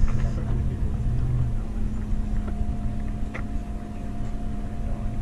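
A steady mechanical hum over a low, uneven rumble.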